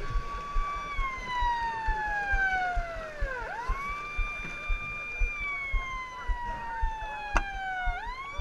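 A siren winding up to a steady tone, holding briefly, then falling slowly in pitch as it coasts down; it winds up again about three and a half seconds in and once more near the end. Irregular low thumps run underneath.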